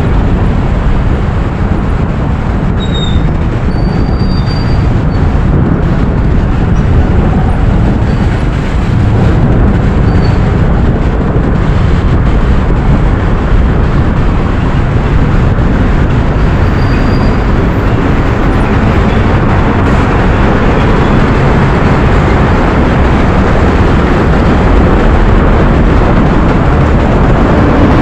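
Loud, steady rushing of wind over an action camera's microphone on a moving motorcycle, with the motorcycle's engine and surrounding road traffic underneath.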